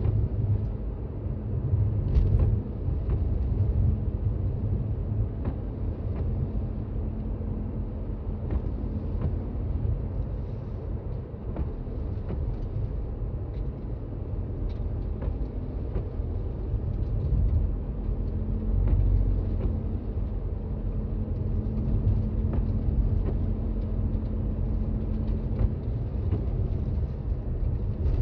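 Toyota Raize Z 4WD driving on a snowy road, heard as a steady low rumble of road and engine noise inside the cabin, with faint scattered ticks.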